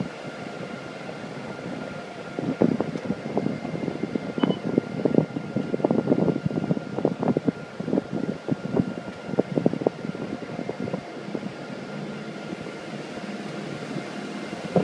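Aluminium catamaran water taxi under way, its engines running with a steady hum and faint constant whine. Irregular thumps and buffeting come and go between about two and ten seconds in.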